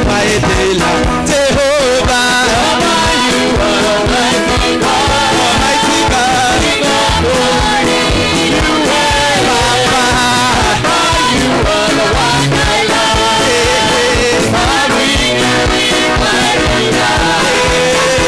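Live church praise music: amplified singers leading a worship song over a band with a steady drum beat.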